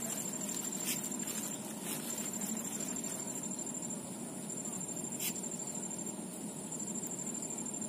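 High-pitched insect trilling, steady and finely pulsed, with short breaks every second or two, over a low steady background hiss. A few faint clicks.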